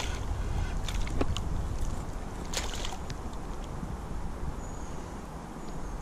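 Low wind rumble on the microphone over water lapping against a float tube. A few small clicks and splashes come about a second in and again midway as a hand works at the water's surface.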